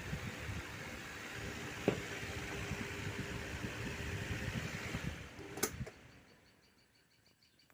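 Table fan running with a steady whir after its shaft bush has been replaced. A click about five and a half seconds in, then the whir dies away as the fan coasts to a stop.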